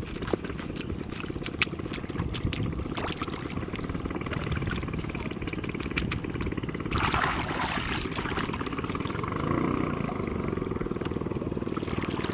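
A small engine running steadily, with scattered light clicks and a short splash-like noise about seven seconds in.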